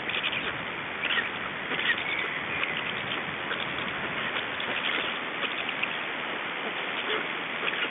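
Steady hiss of rain falling on the surrounding foliage, with scattered light patters and ticks.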